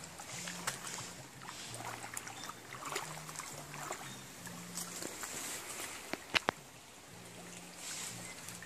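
Feet wading and splashing through a shallow, muddy stream, with water sloshing. Two sharp clicks about six seconds in.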